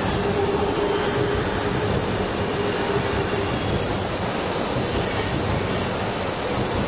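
Shanghai Metro electric train running past close by: a continuous rumble of wheels on rail, with a steady whine through about the first half that then fades.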